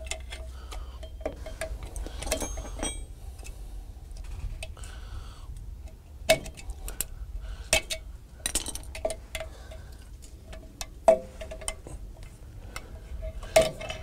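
Hand tools (pliers and a small screwdriver) clinking and scraping on a rusted drum-brake shoe and its parking-brake lever as the tight lever is pried and worked free of the parking-brake cable. Irregular sharp metallic clinks, the loudest coming a second or two apart over the second half, over a steady low rumble.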